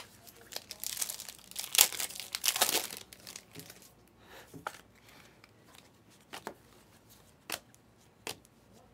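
Panini Select basketball cards handled and flipped through by hand. There is a crinkly rustle of cards and wrappers for about two seconds, then several separate sharp snaps as single cards are slid off the stack.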